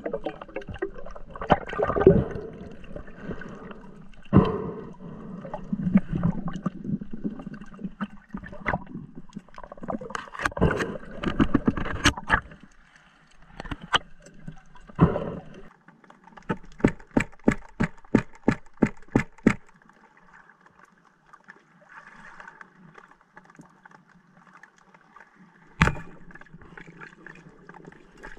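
Underwater handling noise from a spearfisher's gear and a speared mullet: irregular knocks and rustles, then a run of sharp clicks about three a second lasting some three seconds. A single sharp click comes near the end, with the speargun's band loaded.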